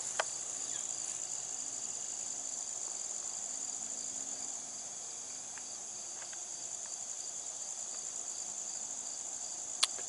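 Steady, high-pitched insect chorus, with a brief click just after the start and another just before the end.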